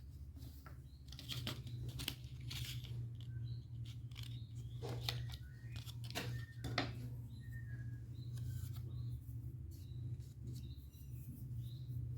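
Irregular clicks, scrapes and tearing sounds of hands handling small laptop parts, over a steady low hum, with a few faint high bird-like chirps.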